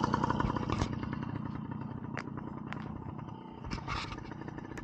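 Dirt bike engine running, loud for the first second, then dropping to a quieter steady run. A few sharp clicks and taps sound over it.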